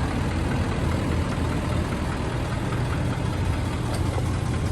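Ford F250's 6.7-litre Power Stroke V8 turbo-diesel idling steadily.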